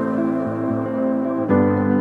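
Calm ambient background music of sustained chords, moving to a new chord about three-quarters of the way through.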